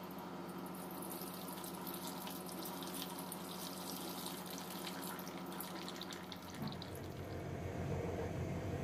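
Water pouring in a thin stream from a plastic measuring jug into a stainless steel mixing bowl, splashing steadily for about six seconds and then stopping. A steady low hum runs underneath.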